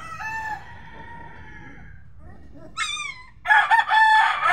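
Rooster crowing: the tail of one crow at the start, then a louder, longer multi-part crow in the last second or so. A short high wavering call comes just before it.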